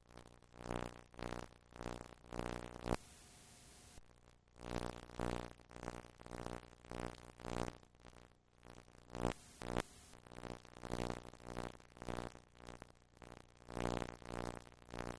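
Background music of low, buzzy pulsed notes, about two a second, breaking off for about a second around three seconds in.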